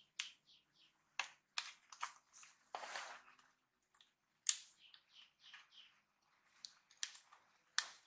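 Faint clicks, taps and a brief rustle from hands fitting the USB port board and its ribbon strip into an opened Lenovo E41-25 laptop, the sharpest click about four and a half seconds in. A bird chirps over and over, three or four short chirps a second, in the background.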